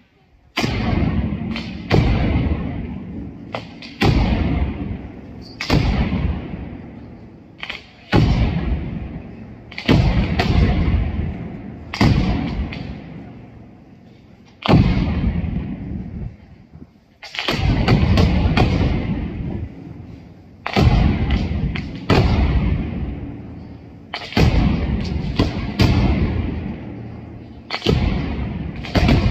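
Engraellat mascleta: heavy black-powder charges on the ground exploding one after another, a loud blast about every one to two seconds, each dying away over a second or so before the next. Quick sharp cracks from the traca firecracker string that links them come between some of the blasts.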